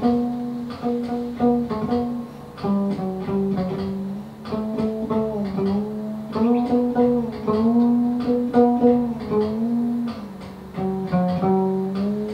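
Cello music played live: a melody of quick plucked notes with sliding pitches, over a lower note that keeps returning.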